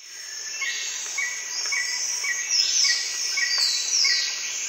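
Outdoor nature ambience fading in: birds chirping over a steady high buzz of insects, with one short chirp repeating about twice a second.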